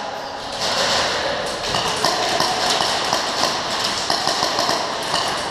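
Airsoft gunfire and BB impacts from elsewhere in a large indoor arena, heard as a steady hiss threaded with many faint ticks and taps, echoing in the hall.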